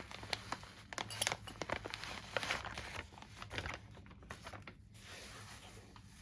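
Plastic packaging crinkling and rustling as it is handled: a dense run of small crackles that thins out after about three seconds.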